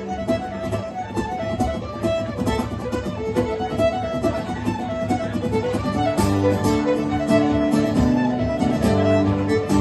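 Fiddle and guitar playing a lively folk tune together: the fiddle carries the melody over steady strummed guitar chords.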